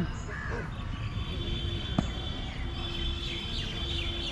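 Outdoor background noise with birds chirping high and thin, a faint steady hum, and one sharp knock about two seconds in.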